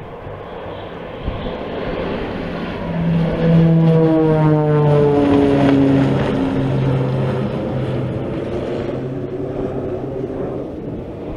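Twin-engine propeller transport plane flying low overhead. Its engine and propeller drone swells, is loudest a few seconds in, and drops in pitch as the plane passes, then carries on as a lower, fading drone.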